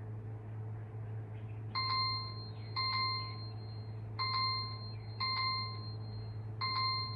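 A timer chime ringing the end of the 15-minute meditation session: a bell-like ding struck in pairs about a second apart, each ringing out briefly, over a steady low hum.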